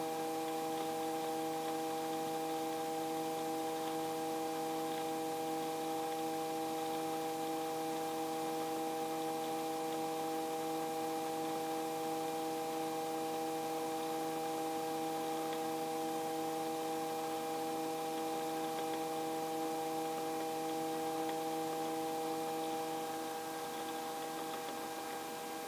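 Helicopter in steady level cruise at about 80 knots, heard through the intercom: a steady hum made of several even tones over a faint hiss, easing slightly near the end.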